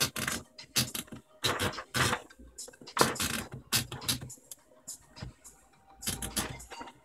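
Princess 300 typewriter being typed on: irregular key strikes clacking against the platen, mixed with the rattle of its carriage and typing mechanism.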